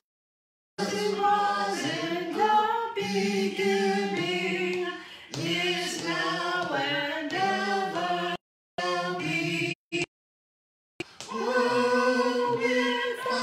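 A man singing an unaccompanied hymn into a handheld microphone, in slow held notes. The sound cuts out to complete silence briefly near the start, at about eight and a half seconds, and for about a second around ten seconds in.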